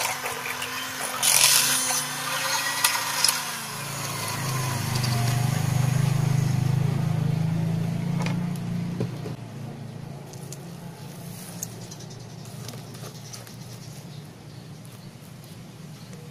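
Electric hand mixer running as it creams margarine and sugar in a glass bowl, its beaters knocking against the glass. The motor's pitch drops about three to four seconds in, it runs on as a lower hum, then stops about halfway through, leaving only faint light clicks.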